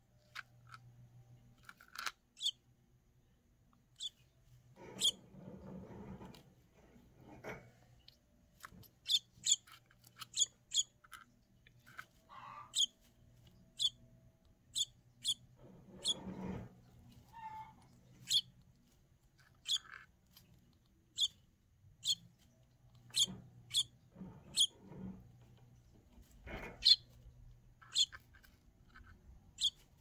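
Baby bird giving short, high-pitched begging peeps, dozens of them at irregular intervals, as it is hand-fed. A few soft rustles of handling in the nest straw come between them.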